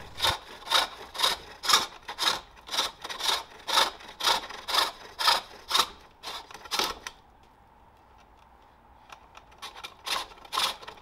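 Hook tool cutting green wood on a pole lathe as the core of a bowl is turned down. It makes a rhythmic rasping cut about twice a second, one stroke for each treadle downstroke. The cuts stop about seven seconds in, and a few faint, light scrapes follow near the end.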